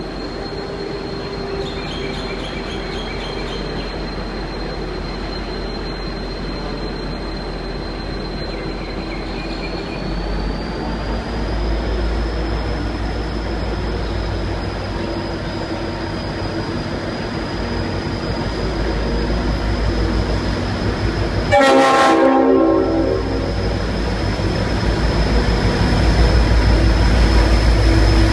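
V/Line N class diesel-electric locomotive running under power and growing louder, with a thin high whine that steps up in pitch. About two-thirds of the way through comes one short blast, about a second long, from its Leslie RS5T air horn.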